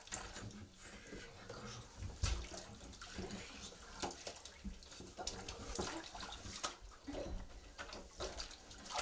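Water sloshing and splashing in a filled bathtub: irregular small splashes as a body is shifted in the water.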